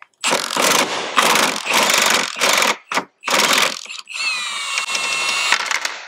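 Cordless impact driver with a T50 Torx bit hammering in several short bursts on a seat belt retractor bolt. About four seconds in it spins freely with a whine that drops in pitch and then holds, as the loosened bolt runs out.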